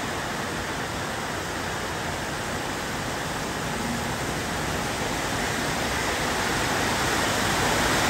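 Very heavy rain pouring down, a loud steady hiss that slowly grows louder.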